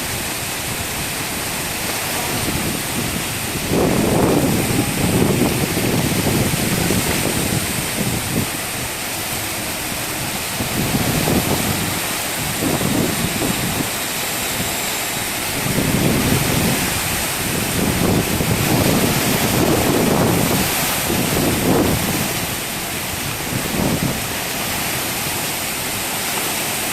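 Heavy rain pouring down in a strong wind, a steady rushing hiss with gusts that swell and die away again every few seconds.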